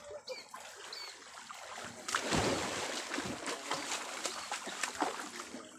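River water splashing hard as a person wading chest-deep thrashes about. The splashing starts suddenly about two seconds in and goes on as a run of repeated splashes.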